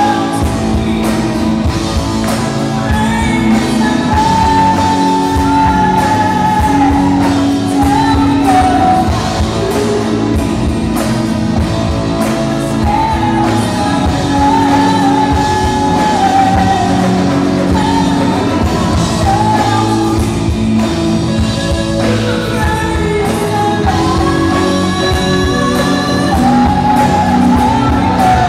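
Live rock band playing a song: a sung lead melody over electric guitars, keyboards and drums.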